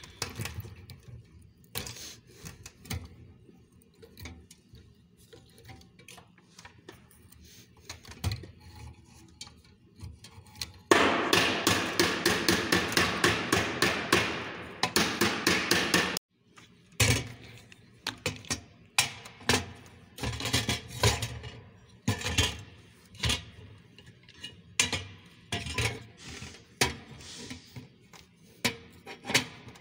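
Hands handling metal parts and control gear in a 400-watt lamp fixture's gear tray: scattered clicks, taps and knocks. In the middle comes a loud, dense stretch of rapid knocking, about four a second, for some five seconds, which cuts off sharply.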